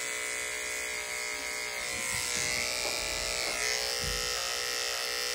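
Corded electric pet grooming clipper running with a steady hum as it shaves the fur at the corners of a dog's eyes.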